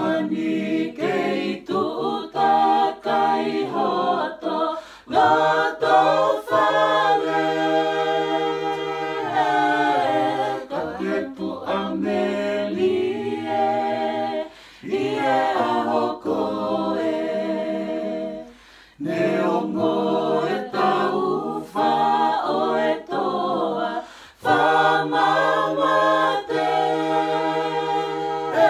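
Mixed men's and women's voices singing a Tongan gospel song a cappella in harmony, in long held phrases with a few short breaks between them.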